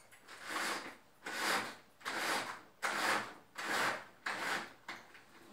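Six rhythmic rubbing strokes, a little under a second apart.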